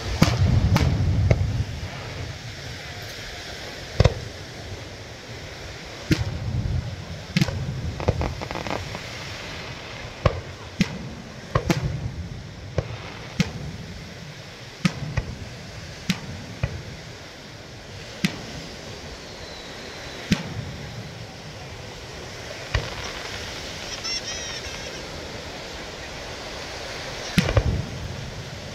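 Fireworks going off: sharp bangs and pops at irregular intervals, one every second or two, with deeper booms at the start and near the end.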